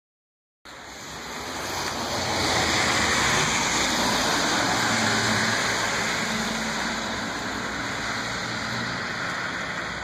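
A rewound microwave oven transformer driving a couple hundred amps at about 2 volts through a short piece of wire coat hanger, which heats until it glows: a steady hiss with a low hum underneath. It starts about half a second in, swells over the next two seconds and then holds.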